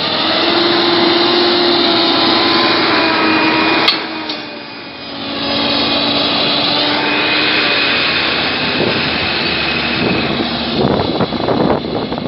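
Big tractor diesel engines working hard under load as a John Deere 7730 pulls on a tow line against a Case IH MXM 140 stuck in mud. The engine note drops away about four seconds in, then climbs again, and the last couple of seconds turn rougher and more uneven.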